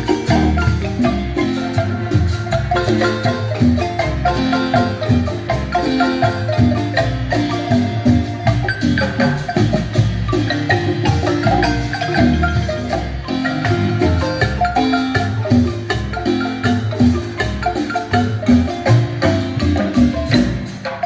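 Guatemalan marimba ensemble playing a lively piece, the tenor part's mallets striking quick runs of wooden-bar notes over low bass notes.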